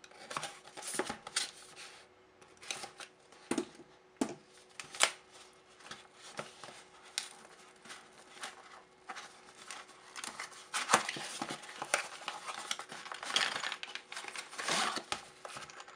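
A cardboard box being unpacked by hand: a folding utility knife slits the packing tape, then the cardboard flaps are pried open and handled, with scraping, crinkling and scattered clicks and taps that grow busier in the second half.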